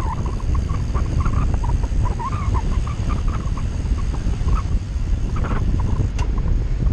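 Wind buffeting the microphone of a handlebar-mounted action camera on a moving bicycle, a steady low rumble, with many short high squeaks scattered through it.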